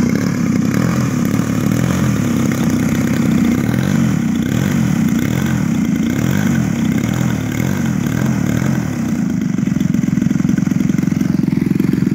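DLE twin-cylinder two-stroke gasoline engine of a giant-scale RC Super Decathlon running steadily as the plane taxis.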